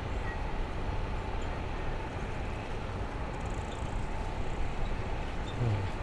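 Steady low rumble of city background noise, with a faint constant hum above it.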